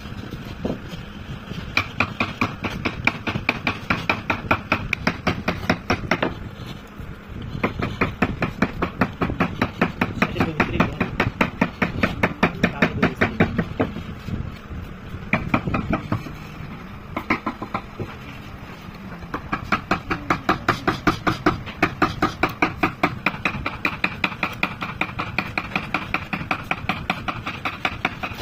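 Hand chisel cutting a groove into wood, making quick, even crunching strokes several times a second in runs broken by short pauses.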